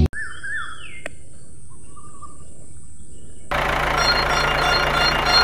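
Birds chirping briefly over a faint steady high hiss. About three and a half seconds in, a battery-powered toy train starts running on its plastic track with a steady mechanical whirr and hum from its small motor and wheels.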